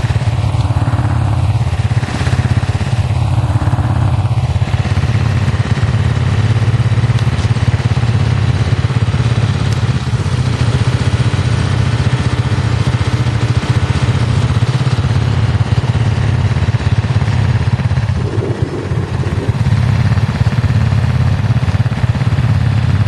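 Quad bike engine idling steadily, with no revving.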